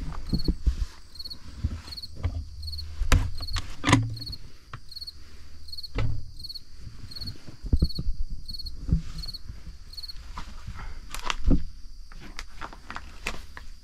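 A cricket chirping steadily, a short high trill repeated about three times every two seconds, with irregular knocks and footsteps on the wooden plank floor of a log dugout.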